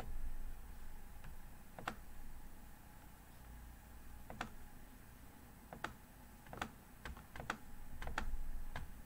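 Scattered clicks of a computer mouse, about ten of them at irregular spacing, more frequent in the second half.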